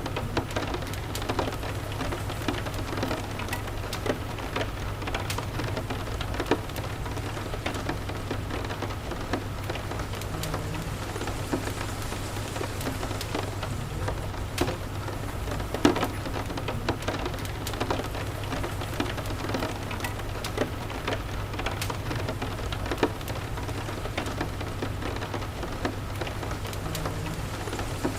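Steady rain, with frequent short sharp crackles and pops from a fireplace scattered through it and a low steady rumble underneath.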